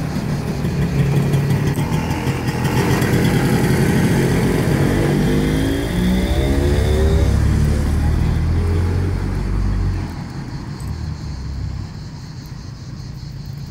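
A car passing close by, its engine running loud and steady, then falling in pitch as it goes past. The engine sound drops away about ten seconds in.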